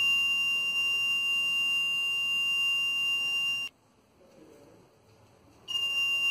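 Arduino alarm buzzer sounding a steady high-pitched tone, triggered as someone walks through the laser beam to the infrared receiver. It cuts off sharply after about three and a half seconds and sounds again near the end.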